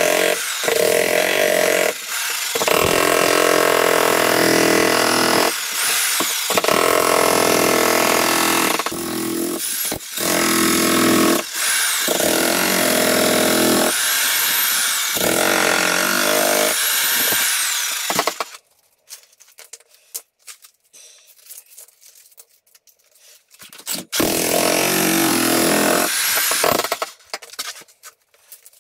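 Jackhammer breaking up a concrete slab, running in long bursts with short pauses between them. It stops about 18 seconds in, runs again for a few seconds around 24 seconds, then stops.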